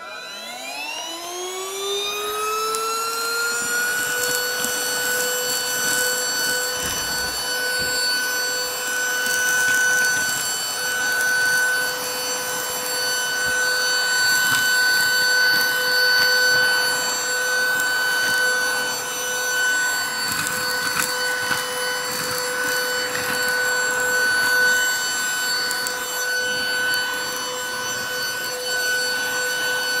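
Greenote GCH01 handheld cordless vacuum cleaner switched on, its motor whine rising in pitch over the first few seconds, then running steadily at a high whine. It is sucking breakfast cereal out of deep-pile stair carpet, with scattered crackles of crumbs going up the nozzle.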